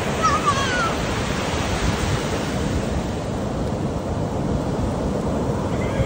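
Ocean surf washing onto a sandy beach, a steady rush of breaking waves. A short, high, wavering cry sounds briefly less than a second in.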